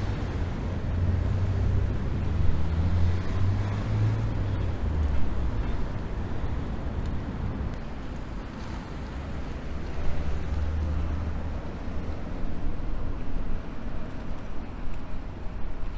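Steady outdoor city rumble of motor engines, with a low engine drone that swells over the first few seconds and again around ten seconds in.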